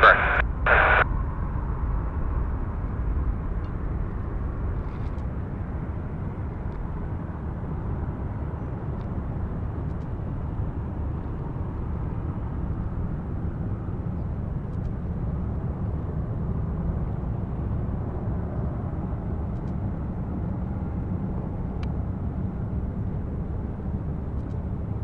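Steady low rumble of a Boeing 747-458's jet engines at taxi power across the airfield. A short bit of air-traffic-control radio cuts off about a second in.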